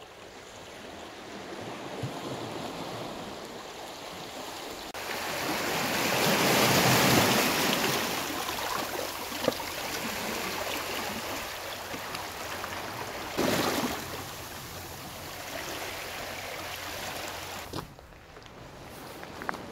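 Sea waves washing against the shore, a steady rush that swells loudest several seconds in and surges once more briefly later on.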